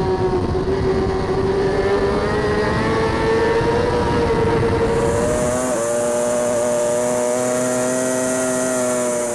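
Racing superbike engine at high revs, heard from on the bike with heavy wind rush, its pitch climbing slowly. About six seconds in it switches abruptly to another bike, a Ducati Panigale V4 R superbike, holding a steady high-rev note.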